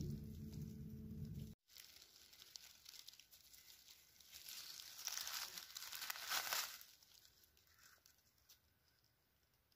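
Rustling and crinkling of dry forest-floor litter in a few faint swells, fading almost to nothing near the end. In the first second and a half a low rumble of wind or handling noise on the microphone cuts off abruptly.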